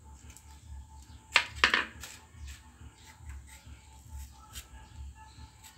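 Hand-cutting a red onion with a large kitchen knife: faint cuts and taps over a faint steady hum, with two sharp knocks close together about a second and a half in, the second ringing briefly.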